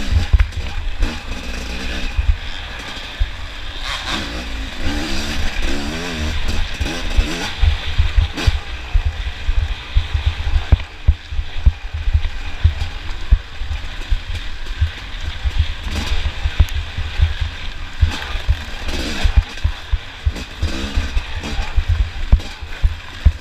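Off-road motorcycle engine revving, its pitch rising and falling, over a heavy low rumble with frequent thumps.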